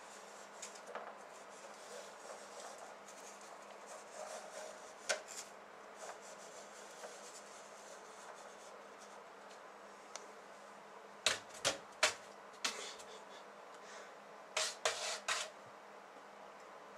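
Handling noise: scattered light clicks and taps, with a quick run of sharp clicks about two thirds of the way in and another shortly after, over a steady faint hiss.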